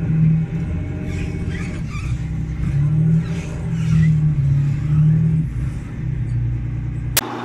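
Diesel engine of the TLAV (an M113-based tracked vehicle) towing an M548 tracked cargo carrier. The engine runs with a steady low drone and swells in revs several times.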